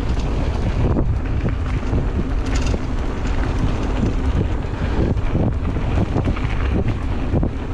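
Wind rushing over the microphone, with the rumble of mountain-bike tyres rolling on a dirt trail and frequent short rattles and knocks from the bike over bumps.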